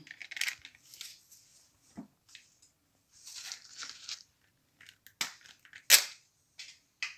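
Parchment baking paper crinkling and rustling in short bursts as hands press and spread batter over it. A few sharp crackles come near the end, the loudest about six seconds in.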